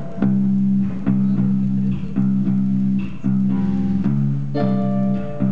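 Rock music with bass guitar and guitar playing a repeating riff of held low notes, each note struck again about every half second.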